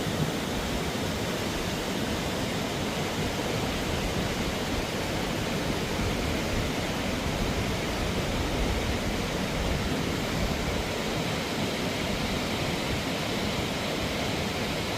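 Tumalo Falls: the steady, even rush of a waterfall.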